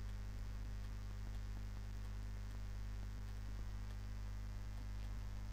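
Steady electrical mains hum with faint hiss, the noise floor of the narration microphone, with a few faint clicks.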